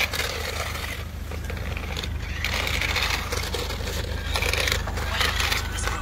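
Toy remote-control stunt car driving over rough asphalt, its plastic wheels scraping and rattling in irregular bursts.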